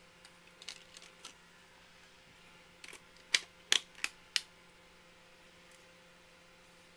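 Plastic parts of an automotive instrument cluster clicking as the gauge faceplate is fitted over the circuit board. A few light clicks come first, then four sharp clicks in quick succession about halfway through.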